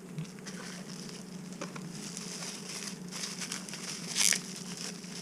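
Plastic packaging crinkling and rustling as it is handled, with scattered small clicks and one louder rustle about four seconds in, over a steady low hum.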